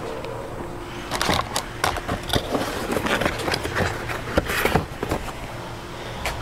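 Handling noise: a run of sharp clicks, scrapes and crackles from wiring and parts being worked by hand, starting about a second in and dying down about five seconds in, over a steady low hum.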